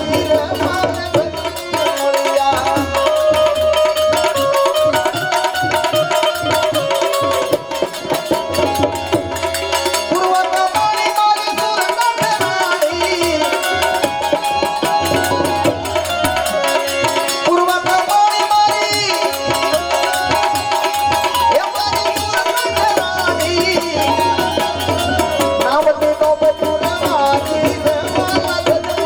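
Gujarati devotional folk music: a tabla keeps up a dense, steady rhythm under sustained melodic lines.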